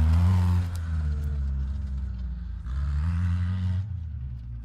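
Off-road buggy engine revving hard as it passes close by, then fading slightly as it drives away. About three seconds in it revs up again, with a rushing hiss that lasts about a second.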